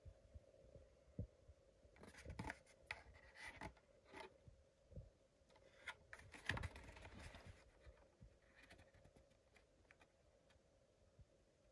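Faint handling noise from a toy car's cardboard-and-plastic blister pack held in the hand: scattered clicks and crinkles, busiest from about two seconds in until past the middle, over a faint steady hum.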